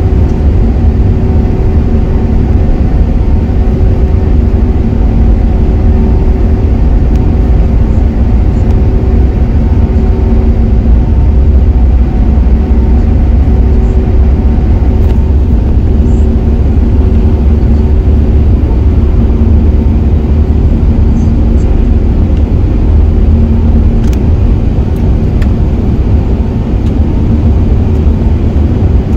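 Airbus A380's jet engines at taxi power heard from inside the cabin: a steady low rumble with a hum of several steady tones.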